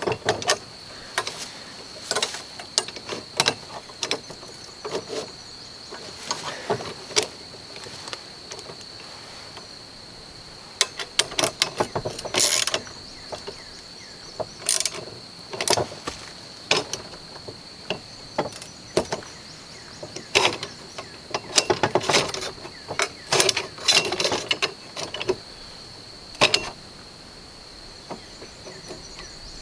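Hand tools and metal parts clicking and clanking on an Alaskan chainsaw mill frame as its nuts are run down and snugged up, in irregular clusters of sharp clicks with pauses between. A steady high-pitched whine sits underneath.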